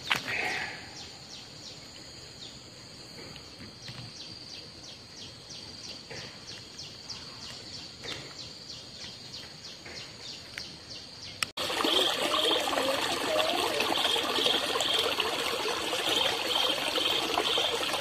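Outdoor nature ambience: a steady high insect drone with faint regular ticking. About eleven and a half seconds in it cuts abruptly to louder ambience, with a high call repeating in short pulses over a steady hiss like running water.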